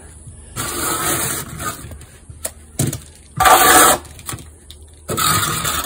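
A steel trowel scraping wet stucco mud against the hawk and the wall patch, in three strokes, the middle one the loudest and sharpest.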